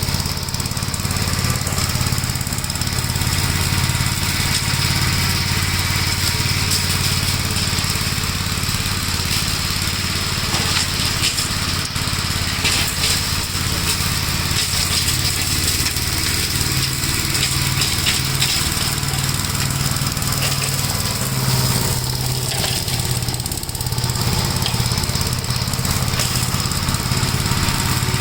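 1956 Gravely Model L walk-behind tractor's single-cylinder engine running steadily, its note changing slightly about two-thirds of the way through.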